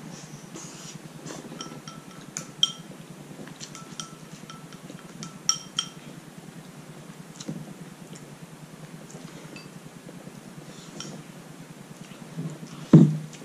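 Spoon and chopsticks clinking against bowls at a meal: scattered light ringing taps, with a few louder knocks near the end.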